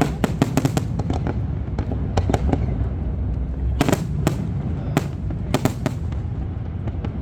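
Fireworks going off: sharp cracks and pops in quick irregular clusters, the densest in the first second, near four seconds and around five and a half seconds, over a steady low rumble.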